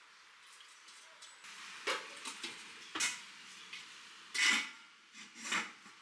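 Kitchenware being handled: a few short knocks and clatters, the loudest about four and a half seconds in.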